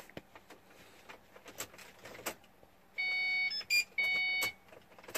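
Faint clicks and handling noise, then about three seconds in, electronic beeping: a long beep, a short one, and another long beep. No fuel pump hum is heard: the pump is not running.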